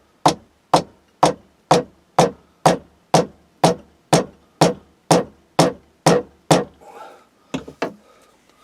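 A wooden trowel handle being driven onto the trowel's metal tang with steady, evenly spaced knocks, about two a second. After a short pause there are two or three lighter knocks near the end. The handle goes on without splitting the wood.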